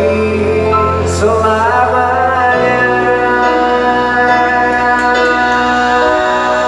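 Live pop music over a concert PA: a singer holds long notes over a band. A steady deep bass note drops out about two and a half seconds in.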